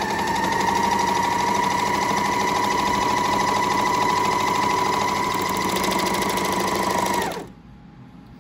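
Janome 8002D overlock machine (serger) running at a steady speed with a fast stitching rhythm and a steady whine, sewing a gathered edge. It stops abruptly about seven seconds in.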